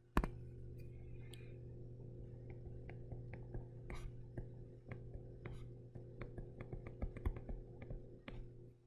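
A stylus tapping and sliding on a touchscreen while handwriting: a string of soft, irregular clicks over a steady low hum.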